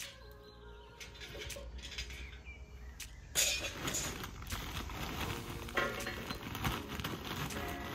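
A run of clattering and clinking of hard objects, starting suddenly about three seconds in after a quiet stretch.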